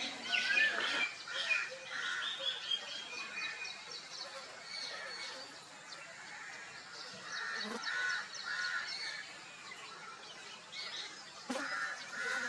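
Birds calling: a busy mix of short chirps and brief repeated honk-like notes, coming in bunches in the middle and again near the end.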